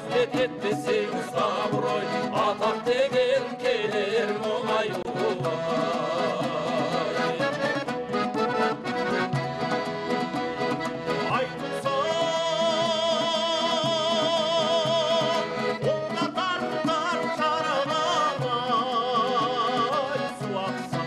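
A Kazakh folk song sung with instrumental accompaniment, the melody bending and ornamented. About twelve seconds in, a long wavering note is held for around three seconds.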